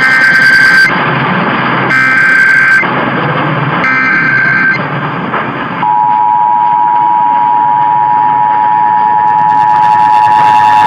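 Emergency Alert System Required Monthly Test over AM radio: three short bursts of SAME digital header data, each under a second and about two seconds apart, then the steady two-tone attention signal, starting about six seconds in.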